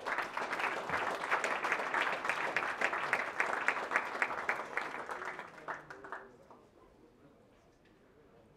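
Audience applauding, a dense patter of clapping that fades out about six seconds in.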